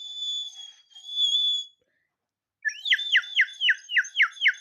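Water-filled bird whistle being blown: two short steady high whistles, then, about two and a half seconds in, a fast warbling trill of falling chirps, about four a second, like birdsong.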